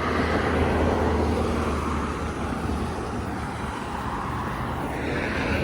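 Road traffic going by: a steady rush of tyres and engines that swells as vehicles pass, about a second in and again near the end.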